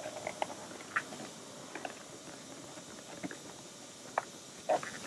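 Leather upholstery cover being handled, pulled and smoothed over a plastic console lid frame: scattered light rubs, creaks and clicks, with one louder brief rub near the end.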